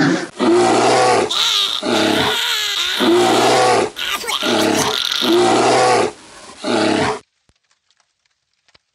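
Cartoon bear growling: a string of loud, rough growls, one after another, that cut off about seven seconds in.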